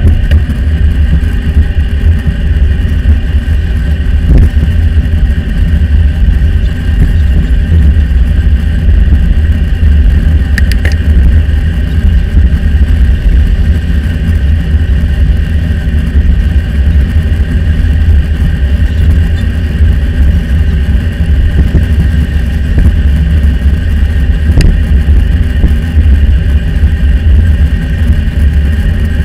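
Steady, loud wind rumble and road noise on a bicycle-mounted action camera's microphone while riding beside highway traffic, with cars passing. The audio is sped up twofold, raising its pitch, and a few brief clicks come through.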